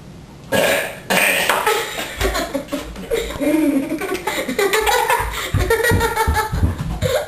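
Two children burping and laughing loudly, starting about half a second in after a short quiet.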